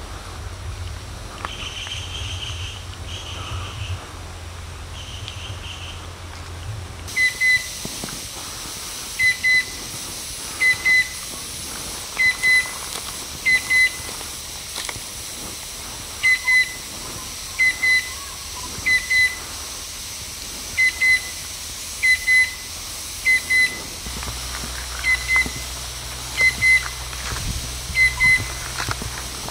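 Chestnut-winged cuckoo calling: a run of loud two-note whistles, one pair every one and a half seconds or so, starting about a quarter of the way in. Before the run there are a few fainter, higher short notes.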